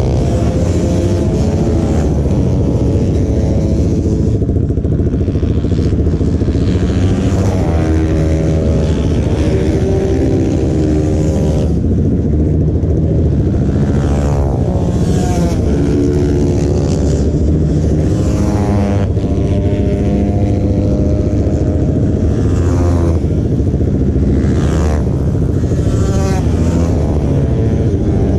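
Several motorcycle engines idling together, with throttle blips every few seconds that rise and fall in pitch.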